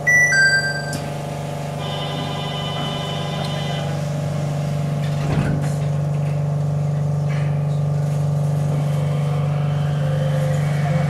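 A two-note falling door chime rings right at the start. Then the rubber-tyred automated guideway train's electric drive hums steadily, with a whine, as it pulls away from the station, getting gradually louder.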